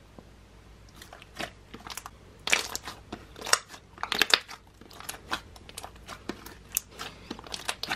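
Glossy slime being pressed and kneaded flat by hands, giving off irregular sticky clicks and pops. The clicking starts about a second in.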